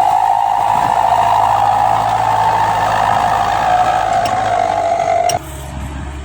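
Heavy earthmoving machinery working, a loud wavering high whine over a low engine hum. The whine cuts off suddenly about five seconds in, leaving a quieter, lower hum.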